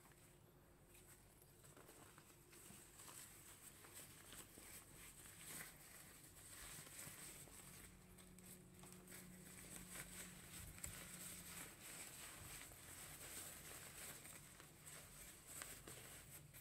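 Thin fabric of a Xiaomi Runmi 90 Point packing cube rustling and crinkling faintly in many quick, irregular crinkles as hands fold it and stuff it into its own pouch.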